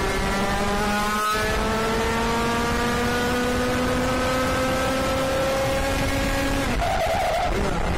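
IAME KA100 two-stroke kart engine pulling hard at high revs, its pitch climbing steadily for about six and a half seconds. Near the end the note breaks off and the revs drop sharply. There is a brief knock about a second in.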